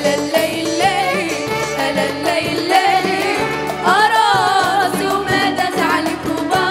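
Two female singers singing an Arabic song together into microphones over backing music with a steady beat; the singing grows stronger about four seconds in.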